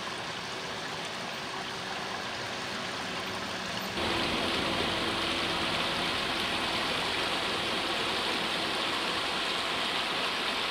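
Rushing water of a stream, a steady even rush that jumps suddenly louder and brighter about four seconds in.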